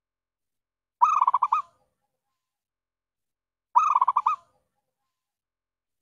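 Zebra dove (perkutut) cooing call, a quick run of about seven notes, given twice about three seconds apart; used as a lure call to draw in wild zebra doves.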